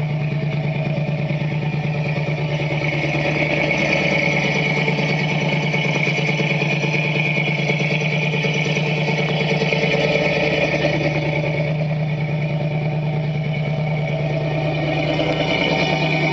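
The built 400M V8 of a 1978 Ford Bronco idling steadily while warming up after a very cold start. It has a custom Crower cam, headers and a 3-inch exhaust with X-pipe and Flowsound mufflers.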